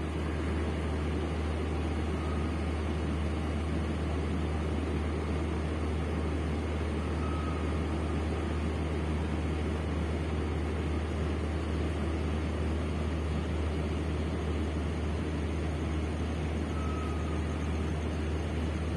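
A train's diesel engine running steadily, heard from the carriage doorway as a constant low hum under a rumbling hiss. A faint, short high tone comes three times.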